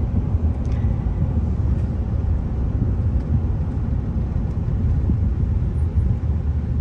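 Steady low rumble of a car driving along, heard from inside the cabin: engine and road noise with no sudden events.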